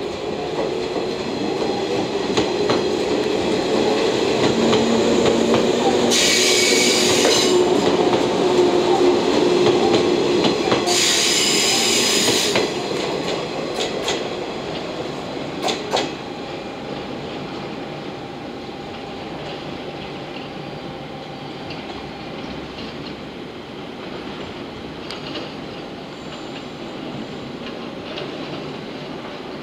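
JR West 113 series four-car electric train pulling out and accelerating, its motor whine rising in pitch over the first dozen seconds, with two brief shrill noises about 6 and 11 seconds in. Wheels click over rail joints, then the train's rumble fades as it draws away.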